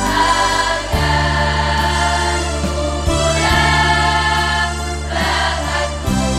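Junior high school choir of young voices singing together over sustained low accompaniment notes, which change about a second in and again near the end.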